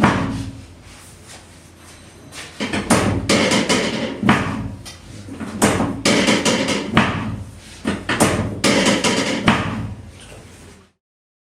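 Thumps and knocking on a treatment couch as the patient gets on and shifts position: a loud thump at the start, then three clusters of rapid knocks a couple of seconds each.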